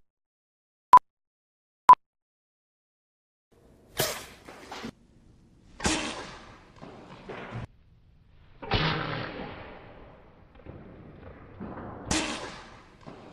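Three short electronic countdown beeps, evenly pitched and about a second apart, then several whooshes, each starting suddenly and fading away over a second or two.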